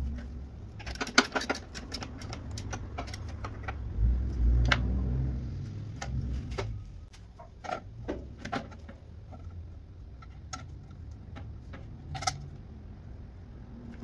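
Scattered clinks and knocks of a steel mounting bracket and a plastic relay box being handled and fitted into place in a car's engine bay, with a dull low bump about four seconds in.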